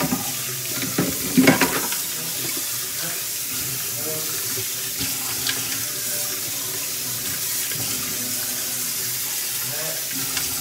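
Water running steadily from a kitchen tap into a sink, with a short clatter of things being handled about a second and a half in.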